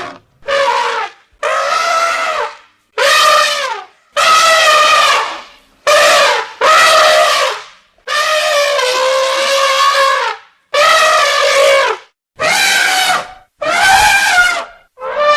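Elephant trumpeting: a series of about ten loud, brassy trumpet calls in quick succession, each lasting a second or two, many sliding down in pitch as they end.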